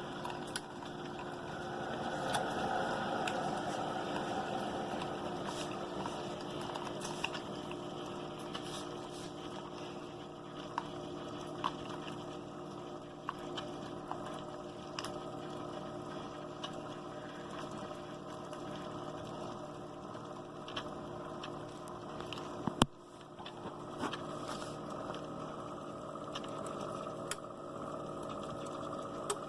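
CHULUX single-serve coffee maker heating and brewing: a steady hum with hissing, bubbling water and small scattered ticks. A single sharp click about three-quarters of the way through.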